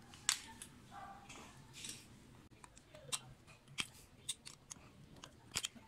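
Small sharp metallic clicks and ticks, a dozen or so at irregular intervals, from a screwdriver working the flat screws on a carburetor body while the metal parts are handled.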